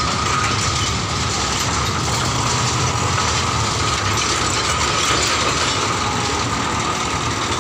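Small narrow-gauge plantation diesel locomotive running steadily as it passes close by, its steel skip wagons rattling over the rails, with a steady high whine over the engine's low rumble.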